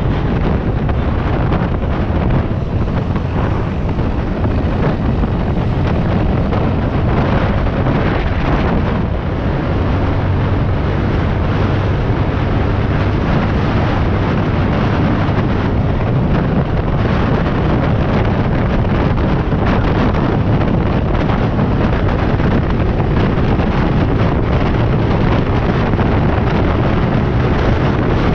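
Heavy wind buffeting on the microphone of a motorcycle ridden at highway speed, with its engine running steadily underneath.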